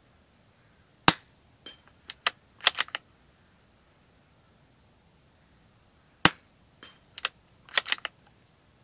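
Two suppressed shots from a CZ 457 Royal bolt-action .22 LR rifle, about five seconds apart. Each shot is followed about half a second later by a faint ring from a hit on a steel plate target, then a quick run of clicks as the bolt is worked to chamber the next round.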